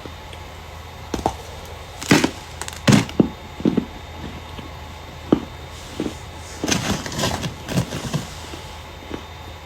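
Starch being crushed, giving irregular crunchy squeaks and crackles in small clusters, the loudest a little after two and three seconds in.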